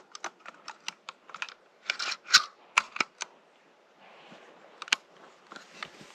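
A run of short, sharp clicks and snaps at an uneven pace, busiest and loudest about two to three seconds in, with one more loud snap near the end.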